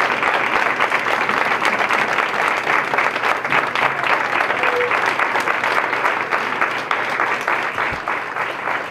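Audience applauding: many people clapping at once, a dense, even patter of claps with no break.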